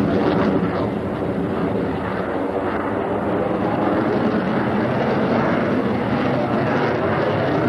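Delta-wing fighter jet's engine noise heard from the ground during a tight display manoeuvre: a steady, loud rumble with a faint hum running through it.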